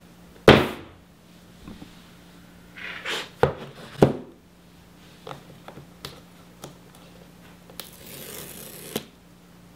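Handling noises from a cardboard iPhone box on a tabletop. A sharp thump about half a second in, a rustle and two sharp knocks around three to four seconds, a few light taps, then a scraping tear lasting about a second near the end.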